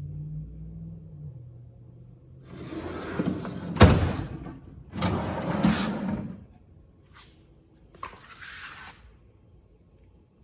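Steel tool chest drawers sliding along their runners three times, with a sharp clack, the loudest sound, as one shuts about four seconds in, and a few light clicks later.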